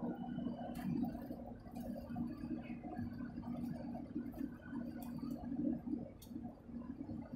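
Truck engine and tyre noise heard inside the cab while cruising at highway speed: a steady low drone with a constant hum, and a few faint ticks.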